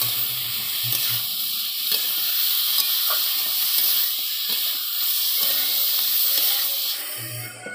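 Chicken pieces and onions sizzling as they are stir-fried in a wok over an open fire, with a metal spatula scraping and knocking against the pan. The sizzle drops away near the end.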